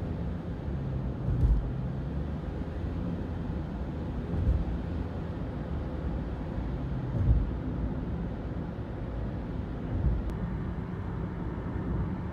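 Road and tyre noise from a moving car, heard inside the cabin: a steady low rumble with a brief low thump about every three seconds.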